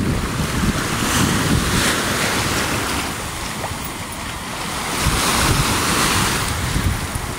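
Small waves washing onto a lake shore, the surf swelling and easing, with wind buffeting the microphone as a low rumble.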